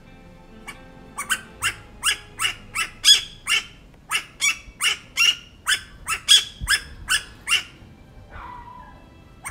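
Asian koel calling loudly: a quick run of about seventeen short, sharp notes, some two or three a second, starting about a second in and stopping near eight seconds in. A fainter, longer note follows near the end.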